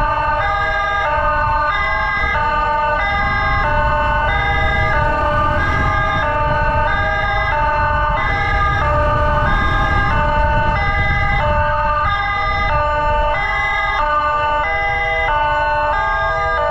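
Electronic emergency siren sounding a hi-lo two-tone pattern, switching back and forth between two pitches several times a second, over a steady low rumble of engine and road noise.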